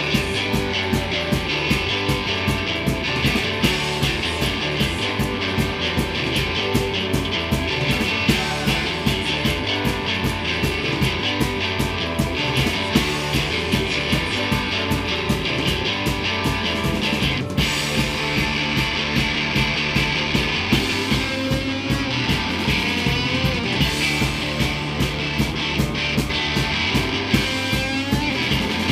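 Live rock band playing loud and without a pause: electric guitar, bass guitar and drum kit keeping a fast, steady beat.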